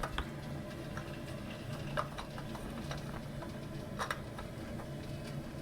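Toilet cistern refilling through its Siamp fill valve, water running steadily into the tank at a good rate now that the valve's diaphragm washer has been replaced. A few faint clicks sound over it, the clearest about two and four seconds in.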